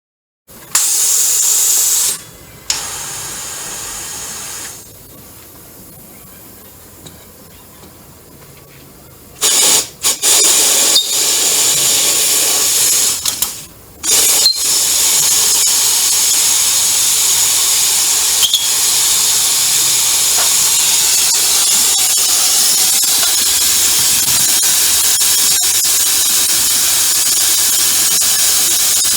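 A loud hissing spray from a pressurised nozzle. It comes in short on-off spells for the first half, then runs steadily from about halfway on.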